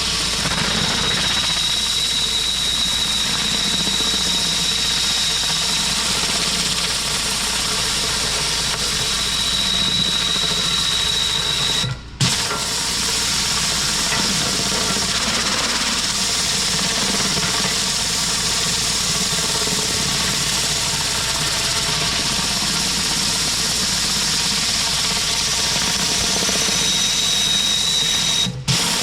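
Pressure washer blasting concrete: a steady engine drone under a loud, even hiss of high-pressure water spray. The sound cuts out abruptly for a moment twice.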